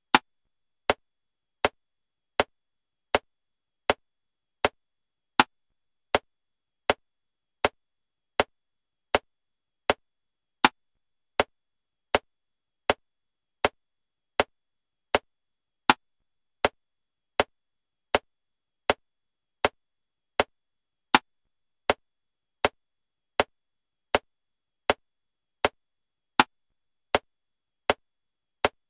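Metronome clicking steadily at 80 beats per minute in 7/4 time, with a louder accented click on the first beat of every bar of seven.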